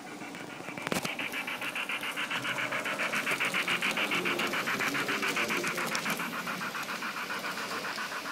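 Model steam locomotive running along the track with a coach: a fast, even pulsing that grows louder over the first few seconds, with a sharp click about a second in.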